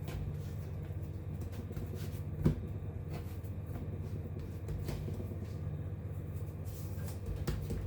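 Light handling knocks and clicks on a kitchen work board as dough is set out for rolling, with one sharper knock about two and a half seconds in, over a steady low hum.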